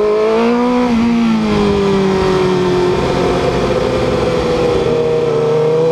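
Sport motorcycle engine heard onboard, pulling in second gear at moderate revs through a bend. The note rises a little about half a second in, eases back, then holds steady.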